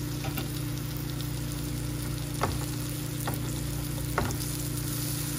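Broccoli, mushrooms and spinach sizzling in hot butter in a non-stick frying pan while a spatula stirs them. The stirring gives two sharper knocks against the pan about two and a half and four seconds in, and a lighter one between them.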